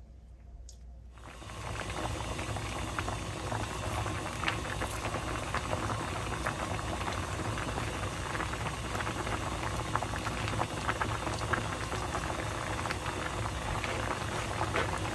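Pot of spicy pollack stew boiling hard, a steady bubbling with many small pops, which starts about a second in.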